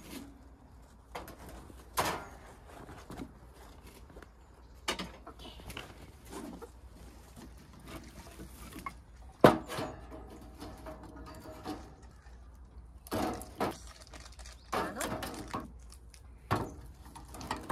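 Irregular short knocks, thuds and clatters of objects being handled or set down, with the loudest knock about nine and a half seconds in.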